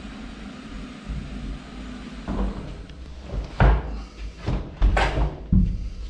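Toilet cubicle door being opened, with a series of sharp knocks and thuds over the second half, the loudest about three and a half and five seconds in.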